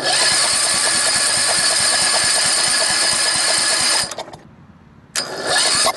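Wheel Horse garden tractor engine being started: it turns over and runs roughly with an uneven beat for about four seconds, stops, then a second start attempt about a second later. Its ignition points gap is still set too wide, the cause of its misfiring.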